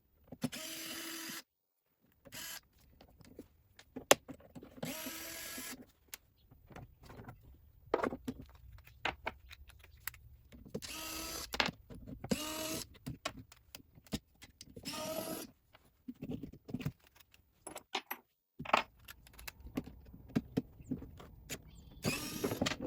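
Cordless impact driver with an Allen bit whirring in short bursts of about a second, several times over, as it backs out screws. Between the bursts come clicks and knocks of small parts and screws being handled.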